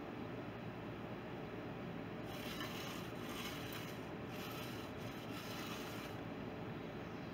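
A hand tool scraping over a freshly poured concrete slab in a few strokes, starting about two seconds in and stopping a second before the end, over a steady low background noise.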